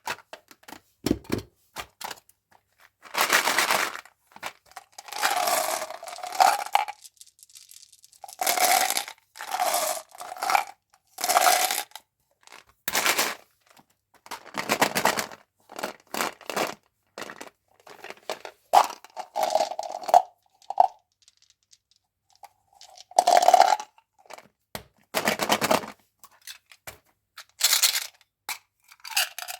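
A chewing gum pack being opened by hand: its wrapper tearing and crinkling in repeated bursts of a second or two, with small clicks and taps between them.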